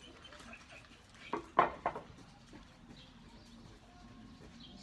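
A dog barks three times in quick succession about a second and a half in.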